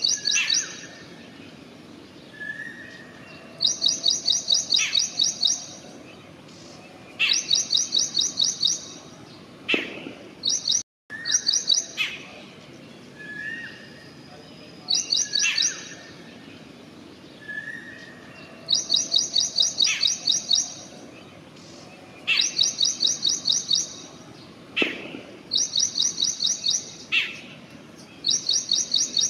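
Wild birds singing: a bright, rapid run of about ten high notes repeats every three to four seconds, with short, lower whistles between the runs. The sound cuts out briefly about eleven seconds in.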